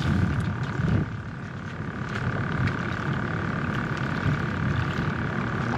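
Wind noise buffeting the microphone over open water, an uneven low rumble, louder briefly about a second in, with a faint steady hum underneath.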